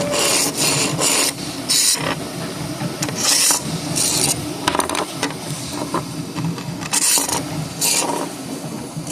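Rubbing and scraping noises in short, irregular bursts, with a few small clicks among them.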